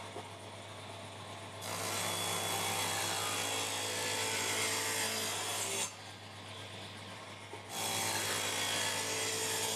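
Table saw ripping plywood in two passes, each a few seconds of loud cutting noise, with the saw running on more quietly between them.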